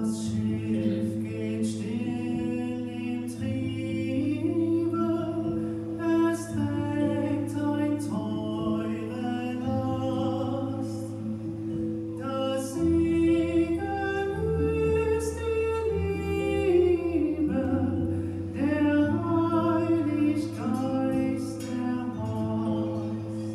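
Music: singing voices over long held low notes that shift pitch every few seconds.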